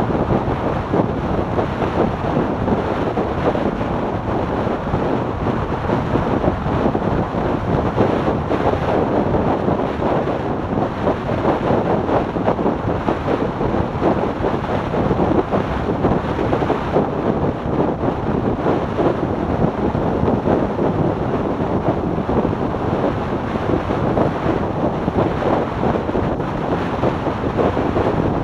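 Steady wind rush buffeting the microphone of a camera on a motorcycle riding at road speed, with vehicle noise beneath it.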